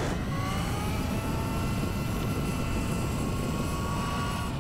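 Electric bike motor whining as it pulls away, its pitch rising in the first half second and then holding steady. Under it is the rumble of tyres on a gravel track.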